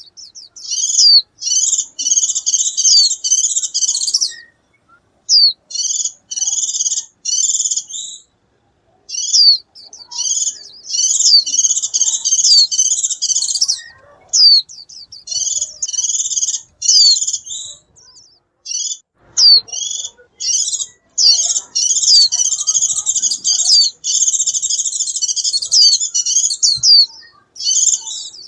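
White-eye twittering song: long runs of rapid, high chirping notes mixed with sliding whistles, in phrases of a few seconds separated by short pauses, calling to the flock.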